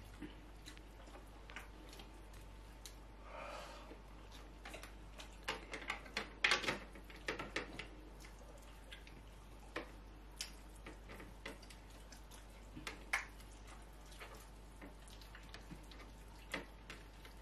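Quiet eating sounds from two people eating biryani by hand off plastic plates: scattered small clicks and smacks of fingers working rice on the plates and of chewing, busiest about six to seven seconds in.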